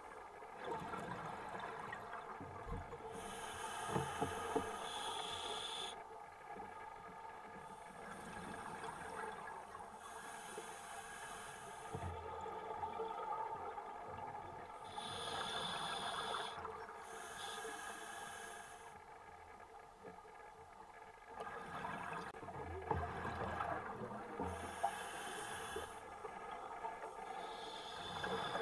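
Scuba diver breathing through a regulator underwater: a hissing inhale alternating with a rush of exhaled bubbles, in a slow cycle of a few seconds per breath, with a few soft knocks.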